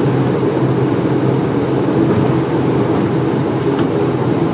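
ATR-72 turboprop engine and propeller running with a steady drone, heard from inside the passenger cabin as the aircraft rolls along the runway.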